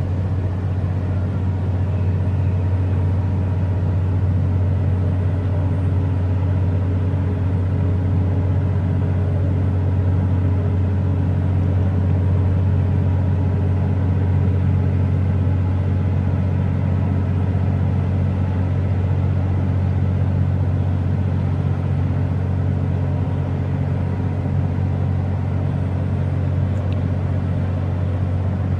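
A steady, loud, low engine drone: a deep unchanging hum with fainter steady tones above it.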